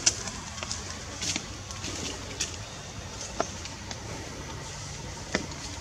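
Outdoor ambience: a steady low rumble with about five short, sharp clicks and ticks scattered through it.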